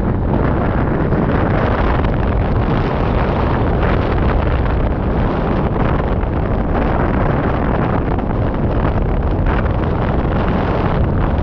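Wind rushing over a GoPro's microphone on a hang glider in flight: a steady, loud rush of airflow, heaviest in a low rumble.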